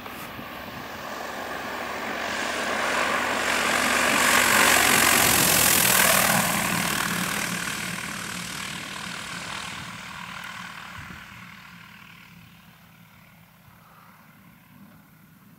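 Cessna 182Q's six-cylinder engine at idle with the throttle closed, the propeller turning over as the plane glides in on full flap. The sound swells as the plane comes close, is loudest about five seconds in, then fades away over the next several seconds as it rolls off down the strip.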